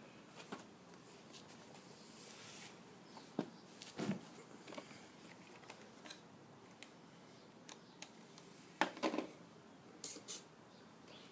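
Scattered light clicks and knocks over faint room hiss, with a cluster about four seconds in and the loudest pair about nine seconds in.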